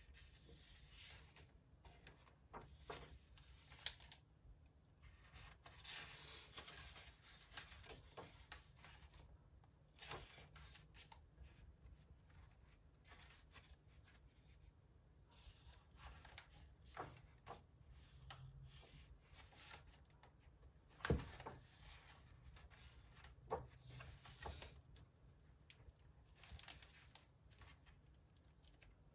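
Pages of a hardcover book being turned and smoothed flat by hand: quiet, intermittent paper rustling and rubbing with soft taps, and one sharper tap about two-thirds of the way through.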